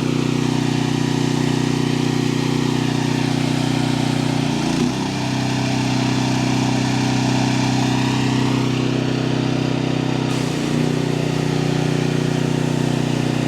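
Gas engine of a pressure washer running steadily, with its pitch dipping briefly twice.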